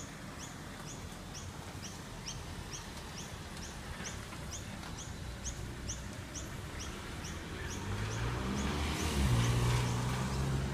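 A car driving slowly past on the street below, its low engine hum building from about eight seconds in and loudest near the end. Behind it, short high chirps repeat evenly about twice a second.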